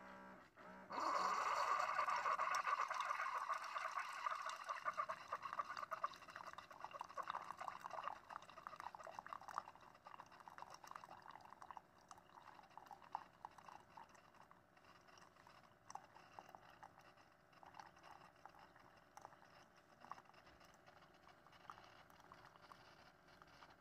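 Single-serve coffee maker brewing, with coffee streaming into a ceramic mug. The stream starts about a second in, is loudest at first and grows steadily quieter.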